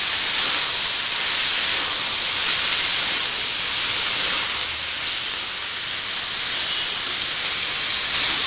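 Chopped cluster beans and brinjal sizzling in hot oil in a wok as they are stirred, a steady loud hiss.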